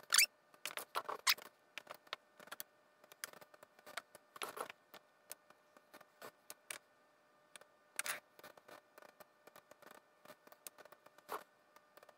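Small clicks, taps and scrapes of hands handling wires and a small circuit board inside a metal amplifier chassis, with a few louder brief scrapes spread through.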